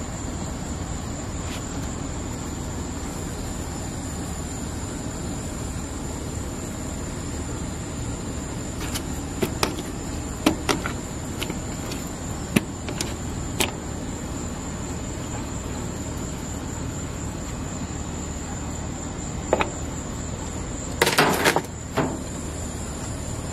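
Light clicks and taps from a stainless steel seasoning shaker and hands on raw meat and an aluminium sheet pan, a handful in the middle and a brief louder clatter near the end. Under it, a steady high-pitched insect drone and a low background hum.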